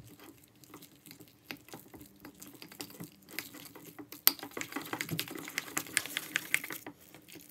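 A spoon stirring thick, crumbly cookie dough in a ceramic mug, making quick scrapes and clicks against the mug's sides. The stirring gets busier and louder about three seconds in.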